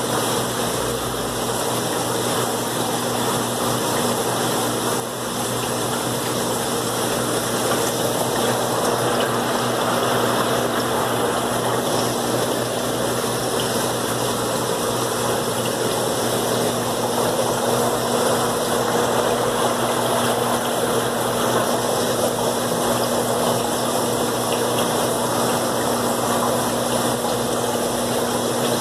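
Aquarium pumps and filters running in a fish room: a steady hum under a continuous rush of water and air.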